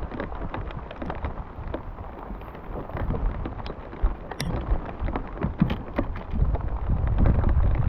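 Rain falling, with many scattered drops ticking sharply close by, and wind rumbling on the microphone, heaviest near the end.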